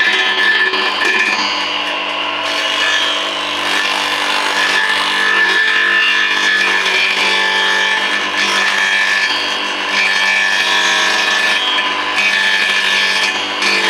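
Homemade electric-motor-driven grass chopper running with a steady whine, shredding papaya leaves and stalks fed into it.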